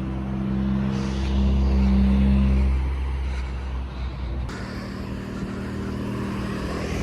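A motor vehicle's engine running steadily with road noise, swelling louder for a second or two about a second in; it changes abruptly at about four and a half seconds.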